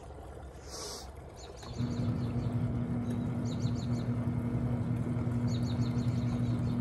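Twin-tub portable washing machine's wash motor humming steadily during the rinse. It starts again about two seconds in after a pause, as the wash tub's drive alternates run and rest. Birds are chirping.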